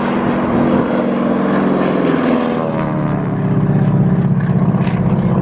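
Single-engine propeller airplane flying overhead, its engine drone dropping in pitch as it passes about two seconds in, then running steady.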